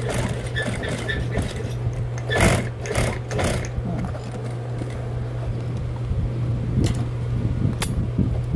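Industrial single-needle sewing machine stitching back over the end of a bag handle through canvas to lock it down, in short runs over a steady motor hum. A couple of sharp clicks near the end as the work is handled.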